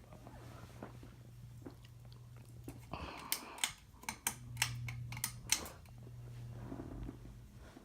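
Harbor Breeze 42-inch Armitage ceiling fan motor humming steadily, with a series of about six sharp clicks about three to five and a half seconds in. The hum drops away when the clicks start and comes back louder about four and a half seconds in.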